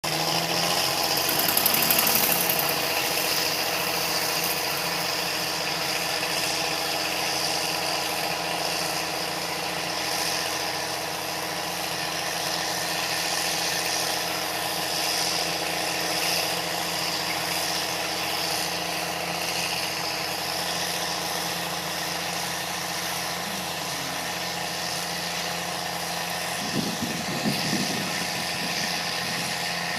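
Heavy diesel engine of tiling machinery running steadily, with a brief rise about two seconds in and a few rattles near the end.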